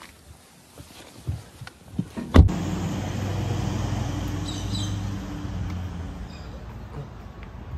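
Faint clicks and taps, then a sharp knock about two and a half seconds in, after which a vehicle's steady low engine hum runs on, easing off a little near the end.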